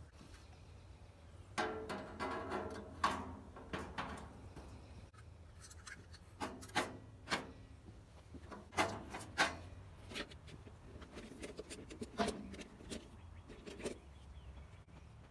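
Stainless steel heat tents being set over the burners in a gas grill's firebox: light sheet-metal clinks, knocks and scrapes in several short clusters.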